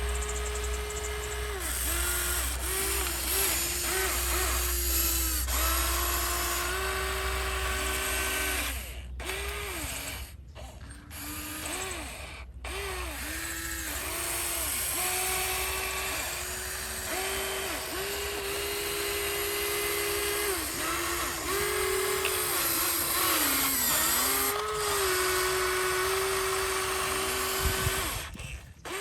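Small electric gear motors of radio-controlled construction models whining, the pitch stepping up and down as they start, stop and take load, with a few short breaks.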